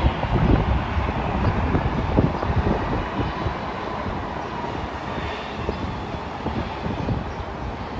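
Jet airliner engines rumbling as the plane moves away, the sound slowly fading, with wind buffeting the microphone.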